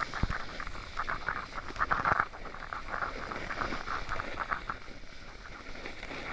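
Snowboard sliding over snow: irregular scraping bursts over a low rumble, with wind on the microphone.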